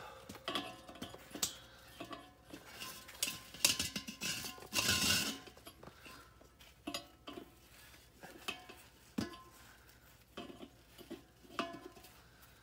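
Metal wrench clinking and scraping against the propane cylinder valves and the regulator hose fitting, in scattered sharp clicks, with a short noisy rush about five seconds in.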